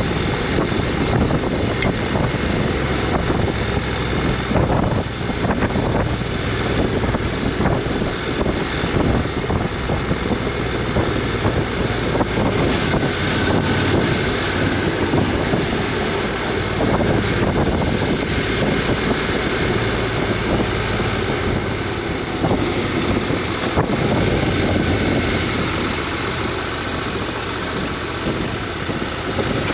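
Honda NC750X's parallel-twin engine running steadily while the motorcycle is ridden, with wind rushing over the microphone.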